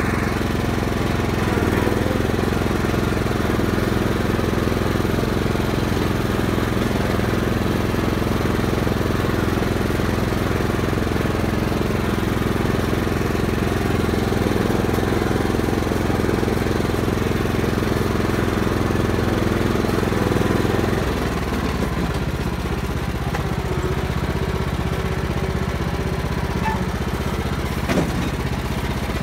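Lawn tractor engine running steadily; about two-thirds of the way through, its note drops to a lower, slightly quieter running.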